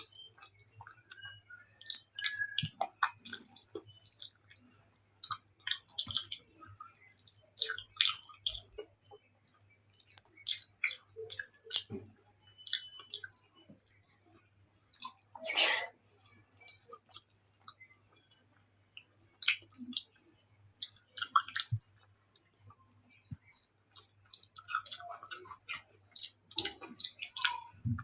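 Close-miked chewing and mouth sounds: wet smacks, clicks and squishes in irregular clusters with short quiet gaps, from eating soft taro curry with rice and sweet potato.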